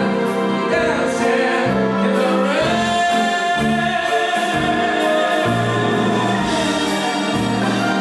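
Live band with saxophone and drums playing a swing-style number with singing, one long note held through the middle; bass notes and cymbal strokes underneath.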